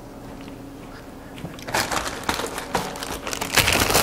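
Dense crackling and rustling of something being handled off-stage, starting about halfway through.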